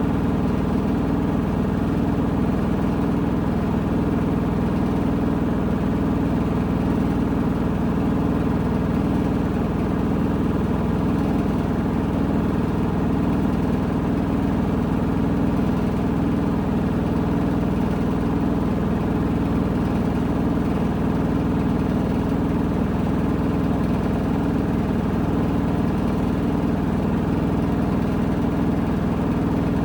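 Washing machine drum in its spin cycle, running at a steady speed with a constant low hum.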